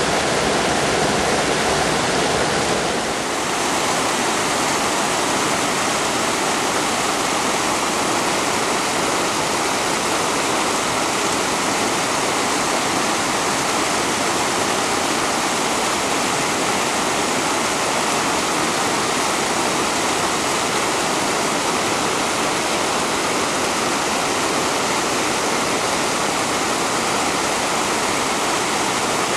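Fast-flowing river rushing steadily, a constant loud wash of water noise that dips briefly about three seconds in.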